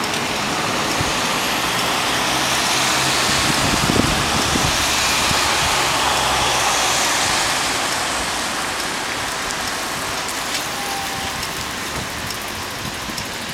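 Road traffic passing on a street: a steady hiss of tyres and engines that swells over the first few seconds and slowly fades in the second half.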